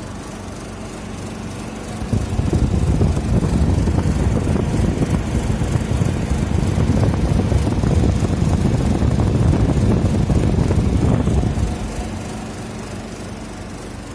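1968 GE Hotpoint room air conditioner with a single-vane rotary compressor, running with a steady hum. About two seconds in a much louder rough, rattling rumble sets in and holds until near the end, then falls back to the steady hum.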